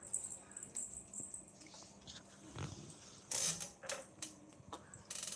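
A kitten playing on a tiled floor, making scuffling and scratching noises, with two brief louder rustling bursts about three and five seconds in.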